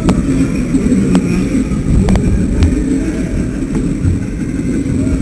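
Low rumbling static from a helmet-mounted camera's microphone, rubbing and buffeting as the child moves his head, with a few sharp clicks scattered through it.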